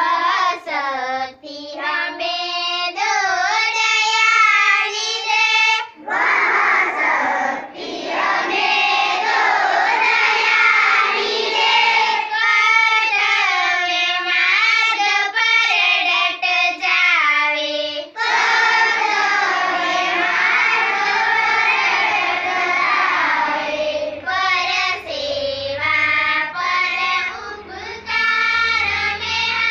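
A group of schoolchildren singing a prayer together, in sung phrases with brief pauses between them.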